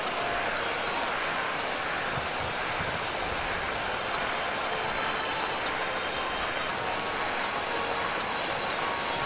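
Steady hiss of heavy rain together with fast-flowing floodwater running down a street.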